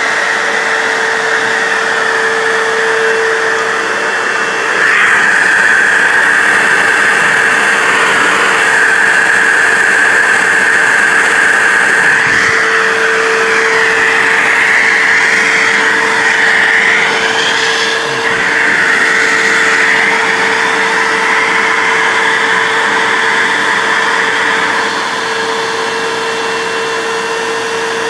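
Backpack vacuum cleaner running with a steady whine and rushing air. About five seconds in it gets louder, and the airflow note wavers up and down in the middle as the nozzle is worked over the dusty ceiling fan. It eases off slightly near the end.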